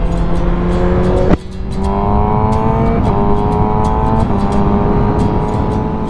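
Suzuki GSX-R600's inline-four engine pulling through the gears: its pitch climbs steadily and drops at upshifts about three and four seconds in. A single sharp crack sounds about a second in, and the engine sound fades near the end.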